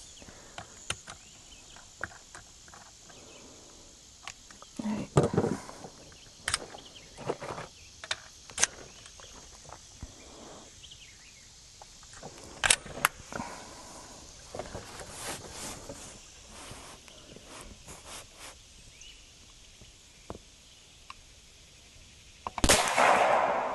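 Scattered clicks and metallic handling noises as the open sights are adjusted and the action of a Seneca Dragon Claw .50 caliber PCP air rifle is worked, then near the end a single sharp shot from the rifle with a short decaying tail.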